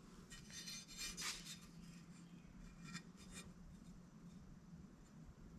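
Faint rubbing and scraping in a few short bursts in the first second and a half and again around three seconds in, otherwise near silence.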